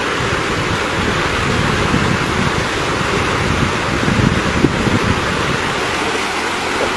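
Fast-flowing river water rushing steadily, with no clear single event standing out.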